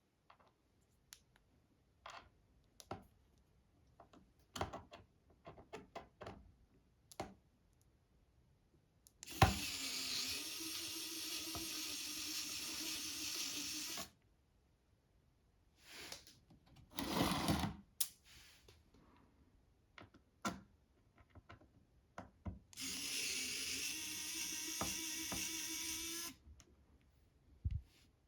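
A small handheld electric power tool's motor runs steadily twice, for about five seconds and then about three and a half, with clicks and taps of small tools and parts handled on a work surface in between.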